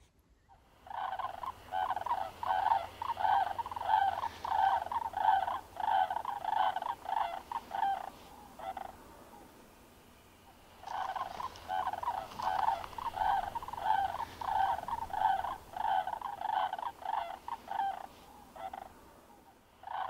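Greater sandhill cranes calling: a series of bugling calls repeated about twice a second, with a pause of about two seconds around the middle.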